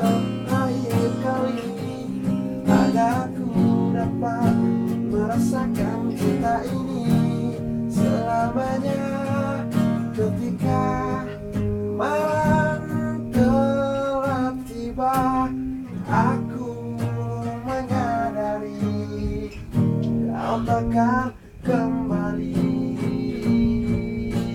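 Music led by acoustic guitar, strummed and plucked.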